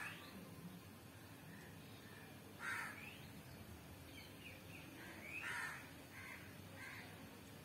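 A bird calling three times, each call short and a couple of seconds apart, with fainter short chirps in between.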